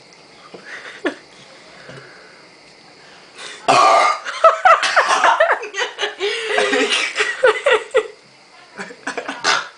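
A loud, drawn-out burp from a girl in a burping contest, starting a little over a third of the way in, with laughter mixed in.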